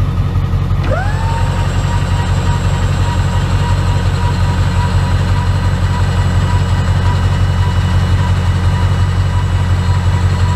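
Truck camper's electric jack motors lowering the camper: a motor whine rises about a second in, then holds one steady pitch. Under it runs a loud, steady low rumble.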